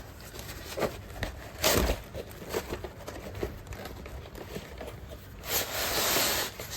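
Toy train set packaging being opened by hand: crinkling and rustling of plastic and cardboard with small clicks and knocks, and a louder rustle lasting about a second near the end.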